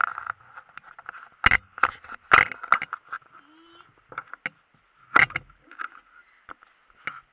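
Irregular knocks and clicks from a GoPro camera being handled on its suction-cup mount, over a faint steady hiss.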